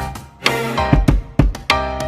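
Background music with a steady drum beat, low kick-drum thumps under pitched instruments.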